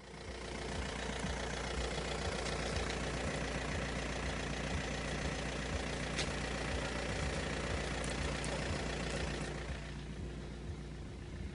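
A vehicle engine running steadily, easing off near the end.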